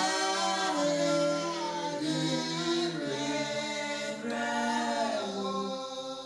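Voices singing a worship song unaccompanied during a church service, in long held notes that glide from pitch to pitch, fading near the end.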